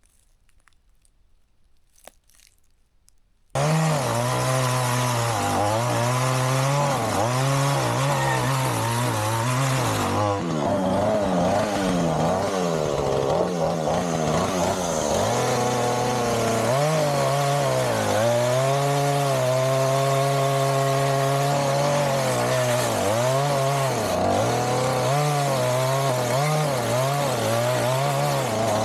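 Near silence, then about three and a half seconds in a chainsaw comes in abruptly at high revs and runs on, cutting wood. Its engine pitch repeatedly dips and rises again.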